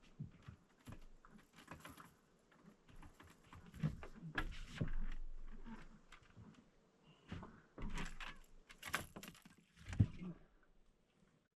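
Irregular knocks, clicks and rattles of gear and handling in a boat, with a few louder clatters and one sharp knock near the end.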